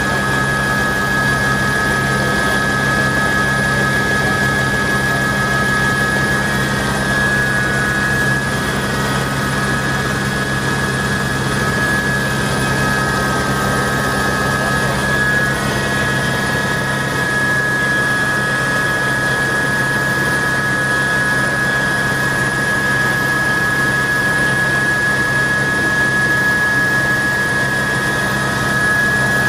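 Sightseeing helicopter running steadily, a constant drone with a high, steady whine on top.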